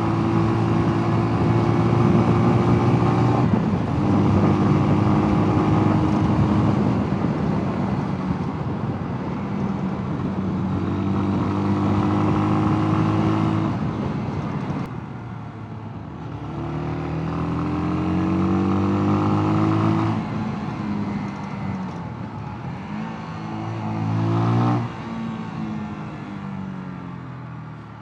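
Mash Two Fifty 250 cc single-cylinder motorcycle engine running at high revs under way, with short dips in revs as it changes gear. Past the middle the revs drop, then climb twice in rising sweeps; the second falls off sharply near the end as the bike slows.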